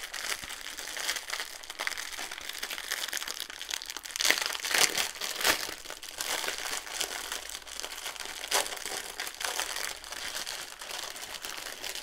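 Clear plastic packaging crinkling and rustling as a sleeve of small plastic bags of diamond painting drills is handled and pulled open, with louder crackles about four to five and a half seconds in.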